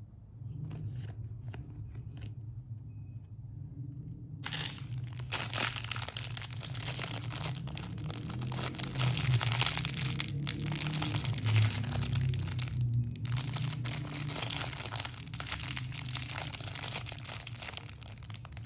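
Thin clear plastic bag crinkling and crackling as it is handled in the fingers, starting about four and a half seconds in after a few soft ticks and going on with short pauses.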